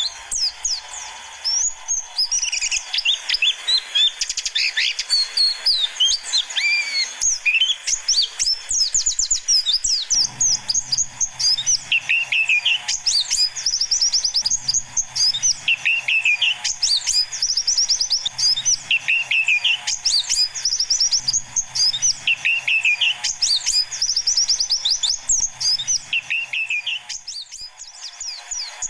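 White-eyes (pleci) chirping and twittering in a dense chorus, played as a lure call for young wild white-eyes. Rapid high twittering runs throughout, with a lower call repeating about every two seconds.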